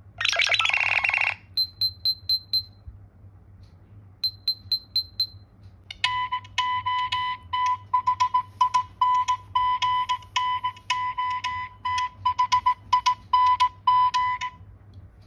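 Nothing OS ringtone and notification tones played one after another. A short bright chime comes first, then two quick runs of five high ticks, then a ringtone of rhythmic clicks over a repeating beep that stops shortly before the end.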